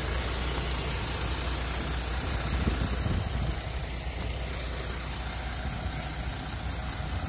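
Isuzu FVR truck's six-cylinder diesel engine idling steadily, a low even rumble.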